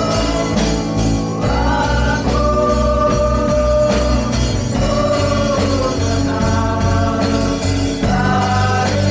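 A mixed group of young voices singing a song together, backed by an electric bass guitar and a keyboard.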